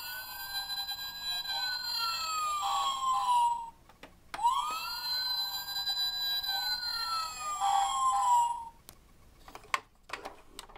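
Electronic siren sound from a Disney-Pixar Cars 'Red' fire engine toy: two wails of about four seconds each, each rising quickly, holding, then falling slowly. A few short clicks follow near the end.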